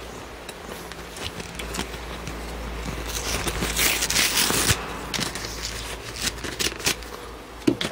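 Packaging being handled: rustling and scraping with scattered clicks and knocks, loudest as a dense rustle about three to five seconds in.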